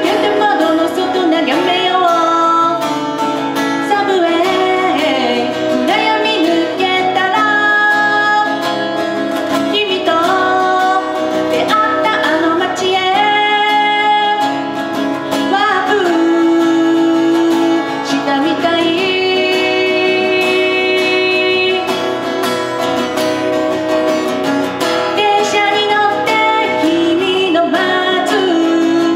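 A woman singing a song while strumming an acoustic guitar, with held, bending sung notes over steady guitar chords.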